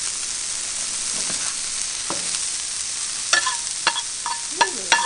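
Ground-beef patty sizzling steadily on a hot Camp Chef flat-top griddle. From about three seconds in, several sharp clinks, some with a short ring, break over the sizzle.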